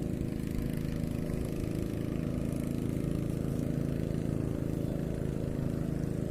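A small engine running steadily at an even, unchanging pitch.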